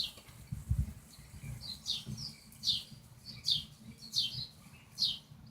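A bird repeating a short, high, downward-sweeping chirp about once every 0.8 seconds, with a faint low thump of handling noise about a second in.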